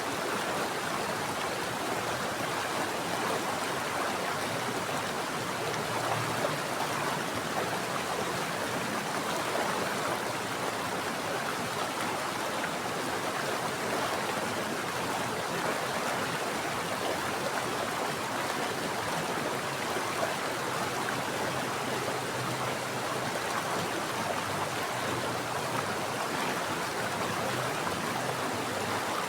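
Water from a mountain stream flowing steadily: an even, unbroken rushing noise.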